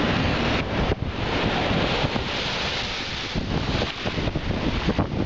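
Strong gale wind buffeting the microphone over heavy storm-surge surf breaking against a seawall, a continuous rushing noise with an irregular rumble.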